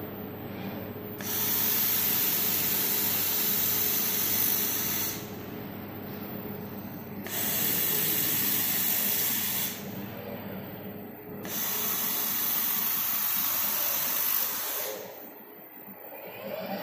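Robotic fiber laser welding head hissing with its gas flow during three weld passes, each lasting two to four seconds with short breaks between, over a steady low machine hum.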